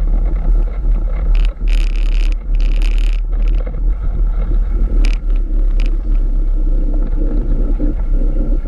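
Old military-style jeep driving along a road, its engine running under a loud, steady low rumble of wind buffeting a camera held on a stick outside the vehicle. Short hissy rushes come through now and then.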